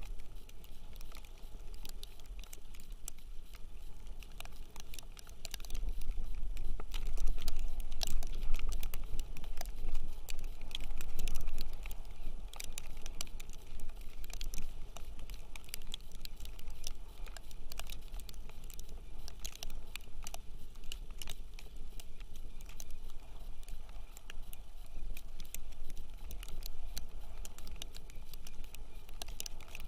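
Wind buffeting the microphone in a low rumble that swells for several seconds early on, with many light scattered ticks of snow hitting the camera and gear.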